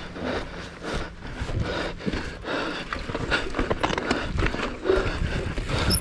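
Uneven knocks and rattles of a bike bouncing over a rough trail during an enduro stage run.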